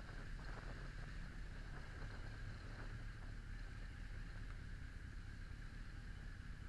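Honda X4 motorcycle's inline-four engine running at low speed, a steady low rumble with hiss over it.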